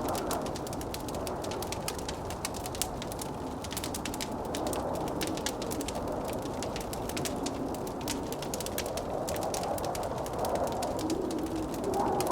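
Wood fire crackling with frequent irregular pops, over blizzard wind that moans and howls steadily and grows louder near the end.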